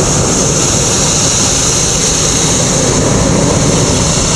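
Hot air balloon's propane burner firing in one long, loud, steady blast.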